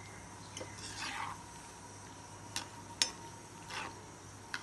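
Perforated metal skimmer stirring cashews frying in hot oil and ghee in an iron kadai: a faint sizzle under two scraping strokes, with three sharp clinks of the skimmer against the pot in the second half.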